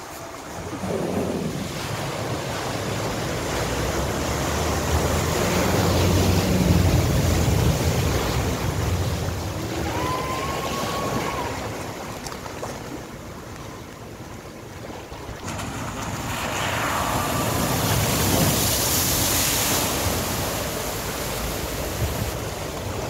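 Floodwater surging and splashing as a 4x4 pickup truck ploughs through a ford over two feet deep, pushing a bow wave, with its engine running underneath the water noise. The splashing swells loudest twice, about a third of the way in and again past the middle.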